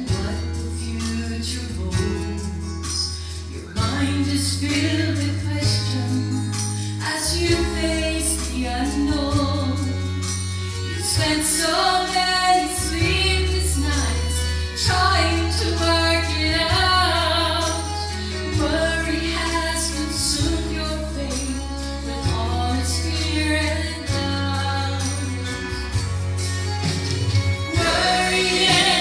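A woman singing a gospel song into a handheld microphone over musical accompaniment with a steady bass line and percussion.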